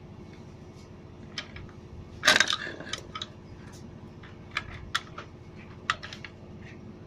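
Metal clinks and clicks of an adjustable wrench working the clutch nut of a Honda Vario 125 centrifugal clutch held in a homemade steel clutch-holder tool, as the nut is tightened. The loudest clatter comes about two seconds in, followed by scattered single clinks.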